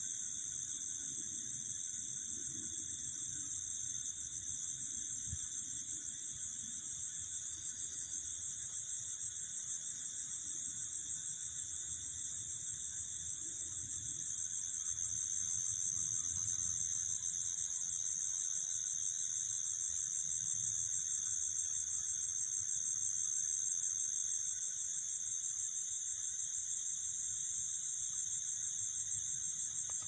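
Crickets and other night insects trilling in a steady, high-pitched chorus.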